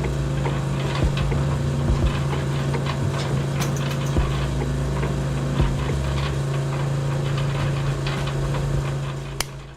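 A small motor running steadily with a low hum, over scattered clicks and rattles of a working model machine; the sound fades out near the end.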